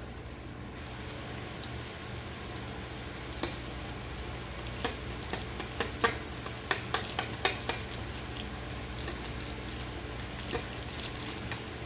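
A metal fork stirring and breaking up half-cooked instant ramen noodles in broth in a bowl. The fork clinks against the bowl in scattered clicks, thickest in the middle.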